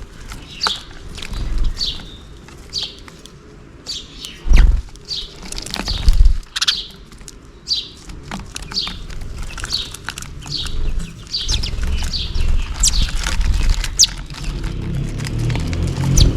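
House sparrows chirping, a steady run of short repeated chirps, one or two a second. Two loud low thumps break in about four and a half and six seconds in.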